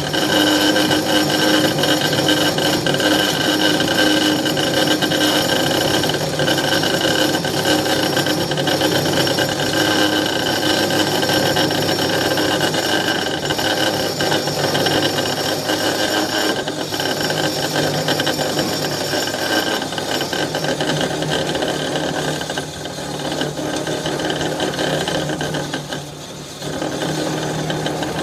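Metal-cutting circular cold saw running and cutting through a metal bar clamped in its vise: a steady whine of several tones over a dense grinding noise, with a brief dip in loudness about 26 seconds in.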